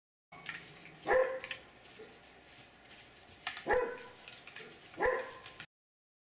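An animal barking three times: short, sharp barks a couple of seconds apart.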